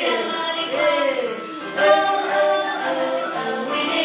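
Children's phonics song for the letter L playing, a sung melody over backing music.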